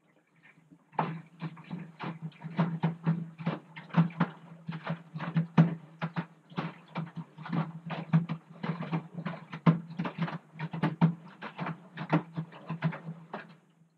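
Front-loading washing machine in its wash cycle: the drum motor hums while wet clothes slosh and splash in the water as they tumble. The drum starts turning about a second in and stops just before the end.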